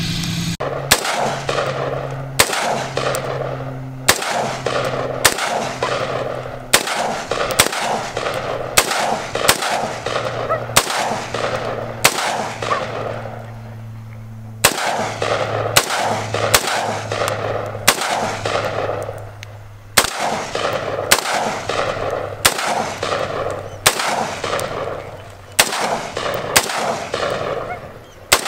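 AR-15 rifle fired semi-automatically, a steady string of sharp shots about every two-thirds of a second, with a pause of about two seconds near the middle before the shooting resumes.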